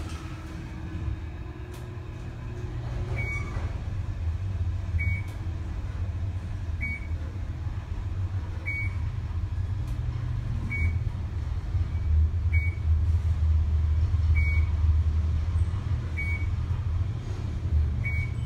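Fujitec traction elevator car travelling upward, heard from inside the car: a steady low rumble that swells in the middle of the ride. A short high beep repeats about every two seconds.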